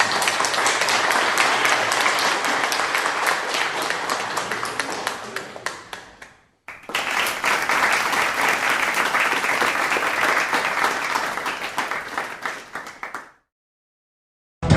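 Crowd applauding, played twice. The first round fades away about six and a half seconds in, and a second round starts straight after and stops abruptly over a second before the end.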